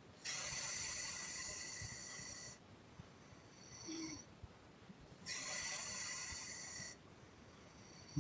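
A sleeping woman breathing out in long, airy puffs through the lips. There are two exhales of about two seconds each, with a faint breath in between, and a brief snort at the very end.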